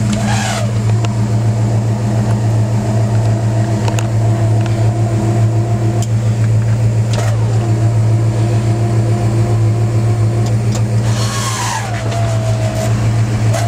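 Power convertible top running: the electric-hydraulic pump motor hums steadily while the top's frame moves. A brief squeak glides down in pitch near the end.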